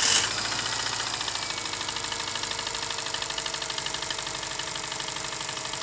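Subaru Forester SG5's naturally aspirated 2.0-litre boxer engine idling with a fast, even knock. It is loudest in the first moment, then settles to a steady beat. The engine has been knocking like this for over a year and a half.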